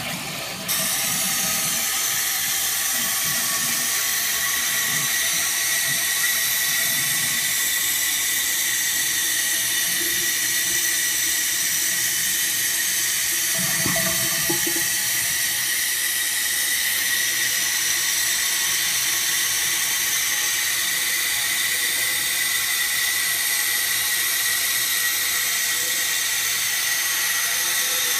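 Toilet tank refilling after a flush: the fill valve hisses steadily with a faint whistle as water runs into the tank of a 1980 Universal-Rundle toilet.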